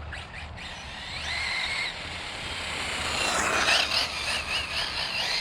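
Losi 8ight-E RC buggy's stock brushless electric motor whining as it is driven, the pitch gliding up and then wavering with the throttle. A rush of noise, loudest about three and a half seconds in, rides over it.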